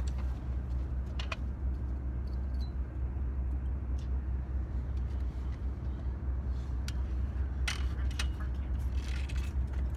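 Steady low rumble, with a few sharp clicks and knocks from a fishing rod and tackle being handled, about a second in and near the end.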